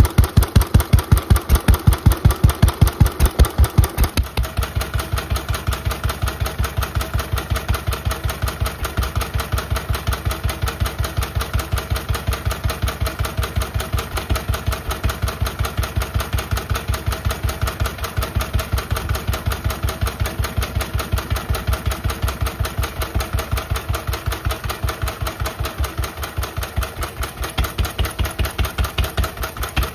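Lister A single-cylinder stationary engine running steadily, its exhaust beating about five times a second through a fitted silencer pipe. The beats are louder for the first four seconds, then settle a little quieter and even.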